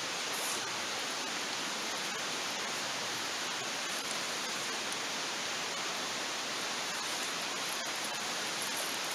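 A steady rushing noise with a few faint, sharp crackles from a wood campfire.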